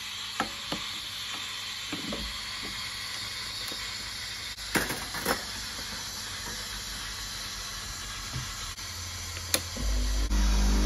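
Sage espresso machine's steam wand hissing steadily as it heats and textures a jug of milk, with a couple of sharp clicks as the portafilter is handled about five seconds in. Near the end the machine's pump starts with a low steady hum as the espresso shot's pre-infusion begins.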